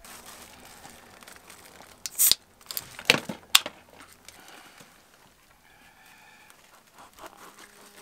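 Food wrapping crinkled and torn open by hand, with a few sharp crackles between about two and three and a half seconds in.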